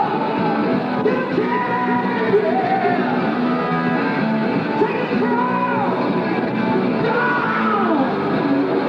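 A rock song with singing over a full band, and falling pitch slides that recur every second or so.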